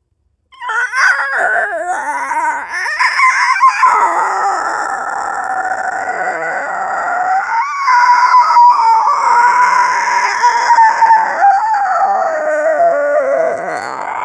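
A person's voice making creature noises: one long, loud, howl-like wail that starts about half a second in, wavering and gliding in pitch at first and then holding near one high pitch.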